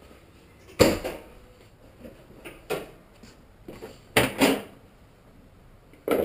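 Sharp clunks and knocks of a 2013 Ford Mustang GT's hood and hood latch being worked by hand, about five in all. The loudest comes about a second in, with a quick double knock just after four seconds.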